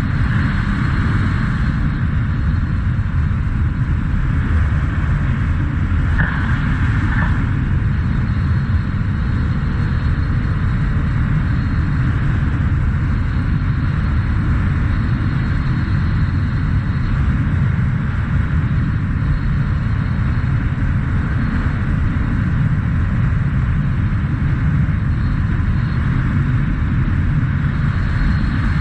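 Honda CT125 Trail motorcycle cruising at a steady speed on a sealed road: a constant rush of wind on the microphone over the drone of the engine and tyres.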